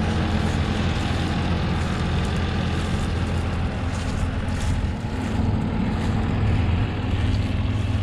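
Claas Tocano combine harvester running close by as it passes, a steady, unbroken engine and machinery drone with a strong low hum.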